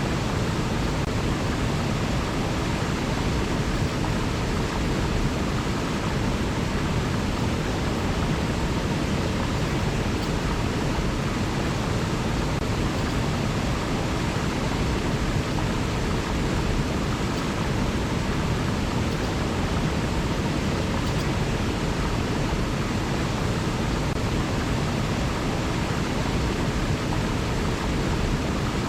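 River water flowing, a steady rushing noise that never changes.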